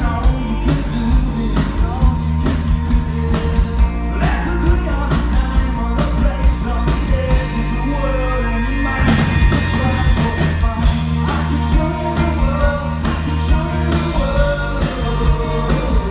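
Live rock band playing through a stage PA: electric guitars, bass guitar and a steady drum beat, with a male lead vocal singing over them.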